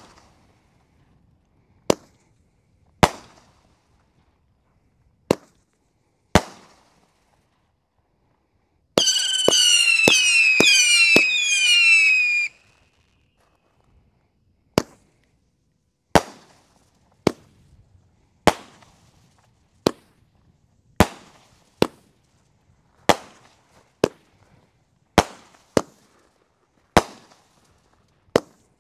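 A consumer fireworks cake firing shot after shot, with sharp bangs about every second or so. About nine seconds in, a volley of shrill whistles falls in pitch for three to four seconds before the bangs resume.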